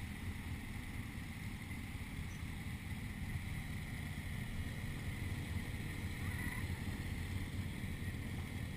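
Steady rushing noise of a waterfall, with a deep rumble underneath.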